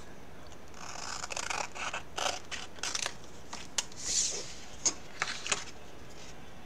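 Scissors (transfer trimmers) cutting through a stencil transfer sheet: a run of short snips and hissing cuts with a few sharp clicks, from about a second in until about five and a half seconds in.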